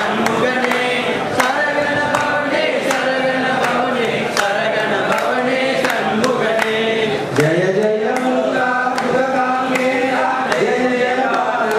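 A group of men singing a Tamil devotional song together. A sharp tick keeps the beat about every three-quarters of a second.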